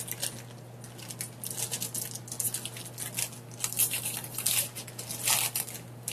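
Crinkly plastic toy wrapper being torn open and crumpled by hand: irregular crackling rustles that grow busier and louder about four seconds in.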